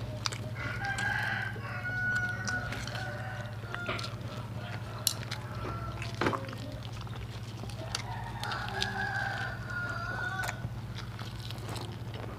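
Rooster crowing twice, each crow a few seconds long, the second about seven seconds after the first. A couple of sharp clicks from metal tongs and chopsticks come between the crows.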